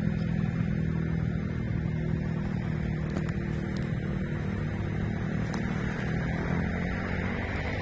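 Road traffic on a city street: a passing vehicle's engine fading away in the first second or so, then a steady low rumble of traffic.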